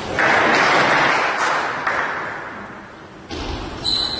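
Spectators applauding a won point in a table tennis match, the clapping dying away over about three seconds.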